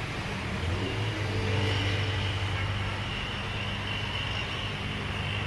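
An engine running steadily, growing louder about a second in and then easing off slowly.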